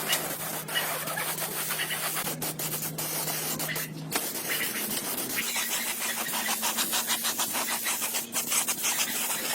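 Rapid rubbing strokes, like a part being sanded or scrubbed by hand, over a steady low hum; the sound dips briefly about four seconds in and then carries on.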